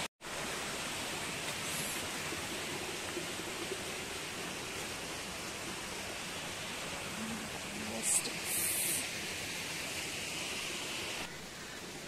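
Small waterfall running over rocks: a steady rushing hiss, with a brief louder noise about eight seconds in.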